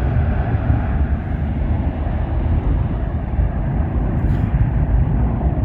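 Jet airliner taking off, its engines a steady low roar as it climbs away.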